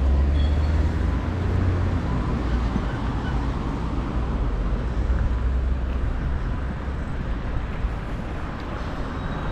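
Road traffic passing on a city street: a steady hum of vehicles with a low engine rumble, loudest in the first couple of seconds.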